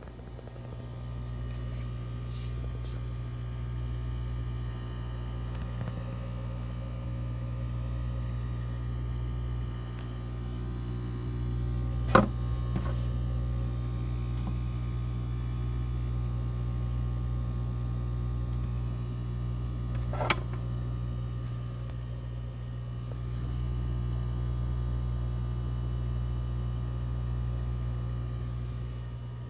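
Tetra Whisper 40 diaphragm aquarium air pump running with a steady low hum. Two short sharp clicks, about 12 and 20 seconds in.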